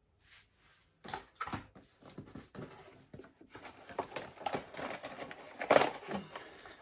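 Product packaging being handled and pulled open: an irregular run of crinkles, clicks and rustles, with the loudest snap just before six seconds in.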